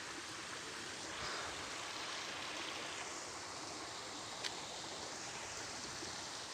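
Steady rush of flowing water, an even hiss with no break.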